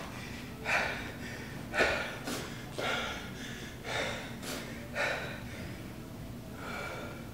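A man breathing hard, with heavy breaths about once a second. He is winded from jump-rope double unders.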